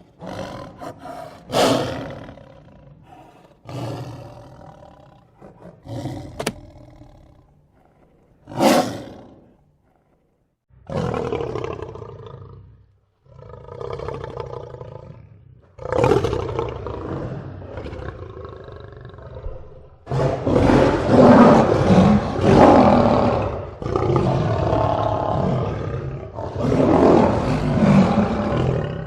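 Lion roaring and growling: a string of short growls and roars, a brief silence about ten seconds in, then longer, louder roars that run almost without a break through the last third.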